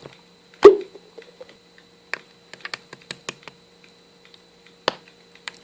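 Irregular light clicks and taps, with one louder knock just under a second in, over a faint steady electrical hum.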